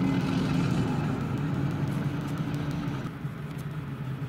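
Heavy farm machinery's engine running steadily, a little quieter after about three seconds.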